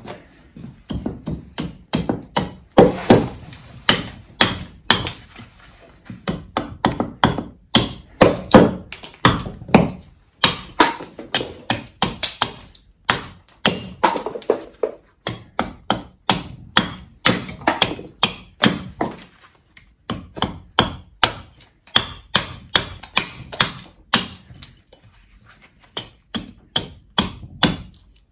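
An 800-gram Basque axe carving a green stick held upright on a wooden chopping block: quick repeated chops into the greenwood, two or three a second, broken by a few short pauses.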